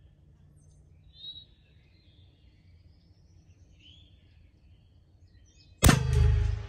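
A single sharp shot from a .22 LR rimfire rifle about six seconds in, with a short ring-out after it. Faint bird chirps before it.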